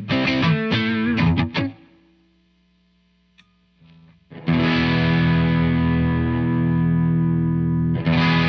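Electric guitar through a Joyo R-02 Taichi, a Zen Drive–style overdrive pedal, playing a quick run of notes that dies away into a brief hush. About halfway through, a thick overdriven chord is struck and left ringing, then struck again near the end.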